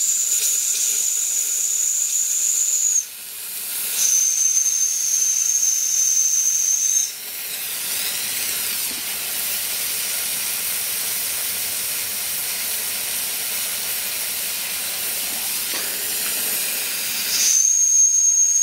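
Steam whistle on a Mamod SE2 toy steam engine's boiler blowing a high, steady shrill note twice, each blast about three seconds long with a short break between. Then about ten seconds of steam hissing, and the whistle sounds again near the end.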